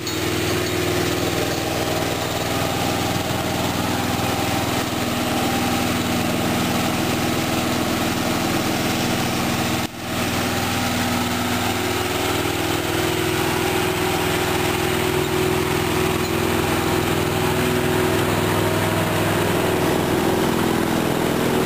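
Small tractor engine pulling a barrel train of children, running steadily at a low, even speed, with a brief break about halfway through.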